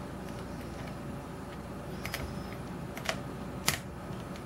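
A few faint, sharp metallic clicks of a steel hook pick working the pins inside a brass Yale-style pin-tumbler cylinder under tension, over a steady low background hum. The picker suspects he has overset pin four.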